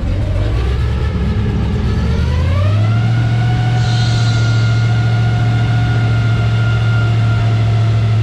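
Tour boat's motor speeding up, its pitch rising over the first few seconds, then running steadily at the higher speed. A brief hiss comes about four seconds in.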